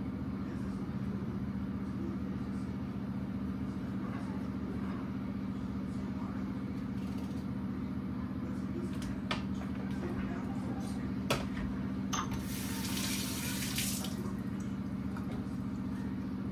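Kitchen knife slicing peeled raw potatoes, a few sharp clicks as the blade cuts through, over a steady low hum. A brief hiss runs for about a second and a half near the end.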